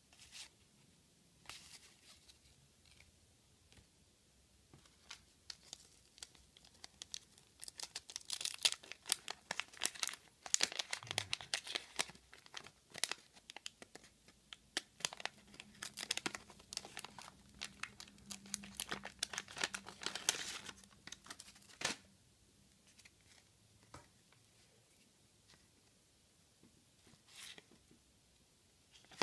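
Pink wax-paper wrapper of a 1985 Garbage Pail Kids pack being torn open and crinkled: a dense run of crackling and tearing through the middle, with a few lighter crinkles before and after.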